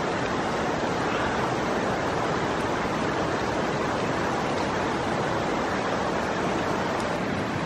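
River water flowing steadily, an even rushing noise with no breaks.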